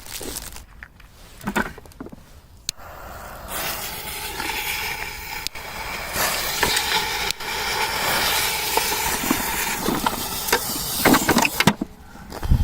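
Firework burning with a steady hissing rush for about eight seconds, then cutting off sharply, with a few loud cracks near the end.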